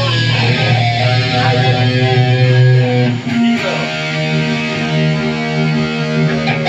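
Amplified electric guitars played live, loud held chords ringing out, with a change of chord about three seconds in.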